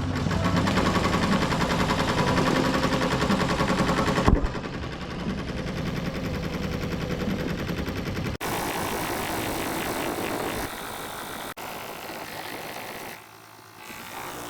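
Embroidery machine stitching at speed, a fast, even mechanical rattle whose pattern shifts a few times, then drops away about 13 seconds in, as the bobbin thread runs out.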